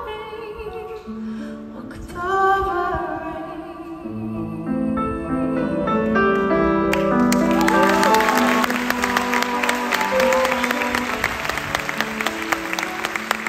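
Live piano ballad ending: a woman's voice holds wordless sung notes over grand piano and band chords, then about seven seconds in the audience breaks into applause and cheering that runs on over the last sustained chords.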